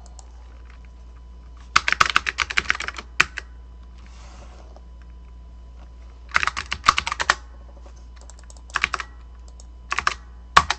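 Typing on a computer keyboard: several short bursts of rapid key clicks, with pauses of a few seconds between them.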